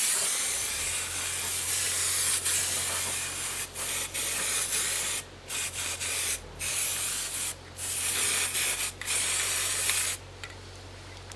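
Aerosol can of self-etching primer spraying in a run of long hissing bursts with short breaks between them, stopping about ten seconds in.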